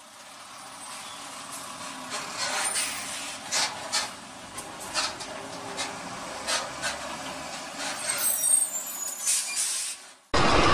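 Traffic noise beside container trucks, heard from a car: a steady road hiss that fades in over the first two seconds, with a string of short sharp hisses and clicks about once a second, ending in a sudden cut.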